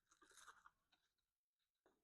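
Near silence, with faint crunching in the first half-second and a light click near the end: a small piece of thin wood veneer being cut.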